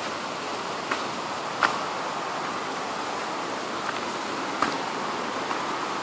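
Footsteps on a jungle path littered with dry bamboo leaves and twigs, with a few sharp snaps and crunches, over a steady hiss.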